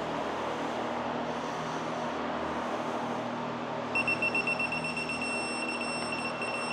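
Electronic torque wrench beeping as the Ecotec cam sprocket bolt is pulled up to torque. About four seconds in comes a fast run of short high beeps, which merges into one steady beep: the wrench's signal that the set torque is reached.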